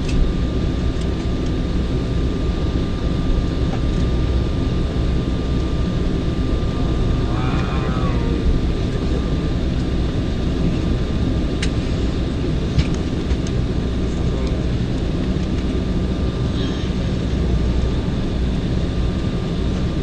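Cabin noise of an Embraer 190 taxiing: its General Electric CF34 turbofans at idle give a steady low rumble with a thin steady whine, heard from inside the cabin. A voice speaks briefly about halfway through, and there are a few faint clicks a little later.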